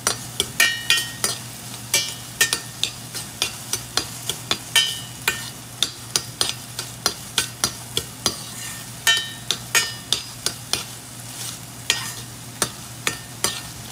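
Diced vegetables frying in a pan with a faint sizzle, while a spatula or cooking utensil stirs them, clicking and scraping against the pan about three times a second. A steady low hum runs underneath.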